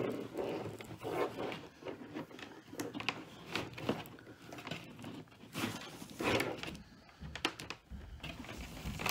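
Wires being pulled out of a bundled Ford 5.0 EFI wiring harness: irregular rustling and scraping of plastic-insulated wires rubbing through the loom, with small clicks and taps as they are handled.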